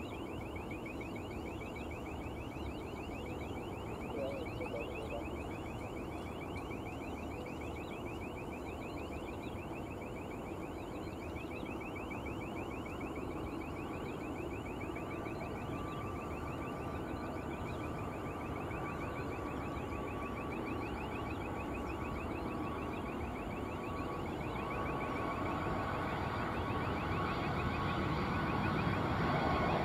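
Boeing 757-200F freighter on final approach: steady jet engine noise growing louder as it nears, with an engine whine coming in about halfway and strengthening near the end. A rapid, even, high-pitched chirping repeats throughout.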